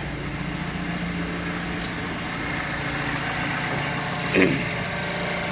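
Mazda CX-5 four-cylinder engine idling steadily and without vibration, its cylinder 3 misfire cured by repairing a rat-chewed ignition wire. A brief clunk sounds about four seconds in.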